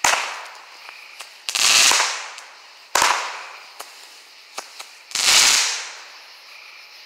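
Consumer fireworks going off: two sharp bangs about three seconds apart, each followed about a second and a half later by a louder rushing burst that swells and fades over about a second.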